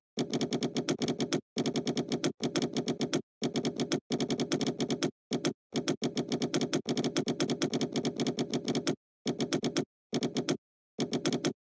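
Computer keyboard typing: rapid keystrokes, several a second, in runs of about a second with short pauses between words.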